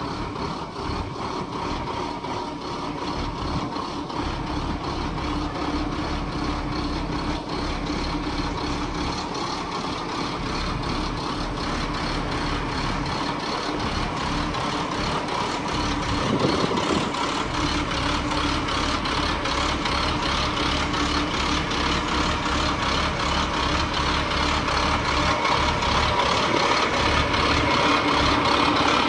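Medium-duty chip truck's engine idling steadily, its tilt hood open. It grows louder toward the end as the open engine bay comes close.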